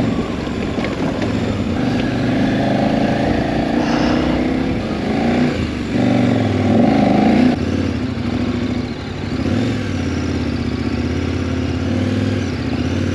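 KTM 1190 Adventure's V-twin engine running under throttle as the heavy bike ploughs through deep, powdery sand. It grows louder about six to seven seconds in, then settles back.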